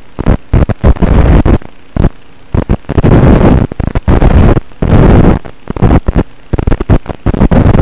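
Loud static hiss and crackle from an analog FPV video link, chopping in and out several times a second as the racing drone's signal breaks up.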